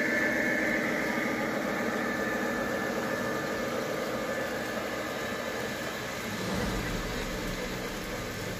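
G-scale model diesel locomotives pulling a freight train past: a steady mechanical hum that slowly fades as they move away, with a low rumble building near the end as the cars roll along the track.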